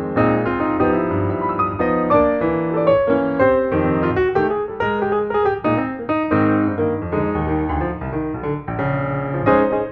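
Background piano music: a steady run of piano notes throughout.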